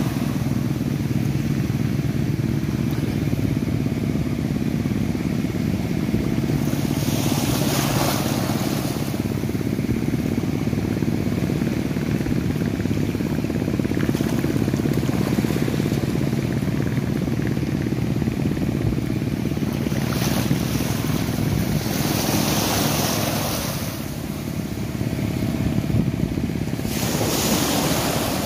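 Small waves washing up and surging in the shallows of a beach, in several swells, over a steady low engine hum.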